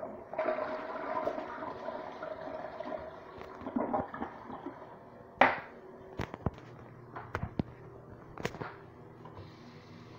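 Sterling toilet flushing, a rush of water lasting about three seconds. About halfway through comes one loud sharp knock, followed by several lighter clicks, and near the end a faucet starts running into the sink.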